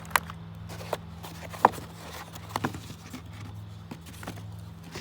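A few sharp clicks and knocks, about four in the first three seconds, over a steady low hum.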